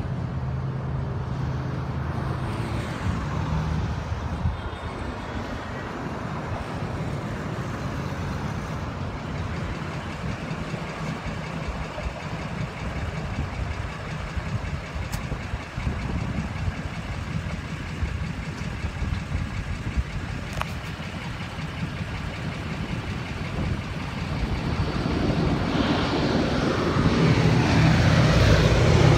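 Road traffic at an intersection, cars and trucks passing. Over the last few seconds, the propeller drone of a B-17 bomber's four Wright R-1820 radial engines grows steadily louder as it comes in low overhead on landing approach.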